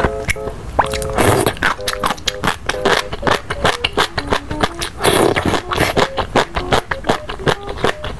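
Close-miked eating sounds: rapid wet chewing clicks, with two longer slurps about a second and five seconds in. Background music with short repeated notes plays under them.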